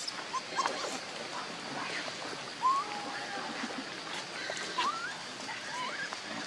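Baby monkey crying: several short, high squeaky calls that rise in pitch, starting a little over two seconds in, one trailing off into a flat, held note. The cries are those of a hungry infant begging its mother for milk.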